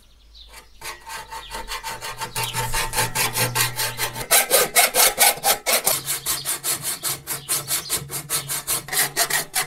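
Hacksaw cutting through a rain-gutter downpipe: quick back-and-forth saw strokes in an even rhythm, starting about a second in.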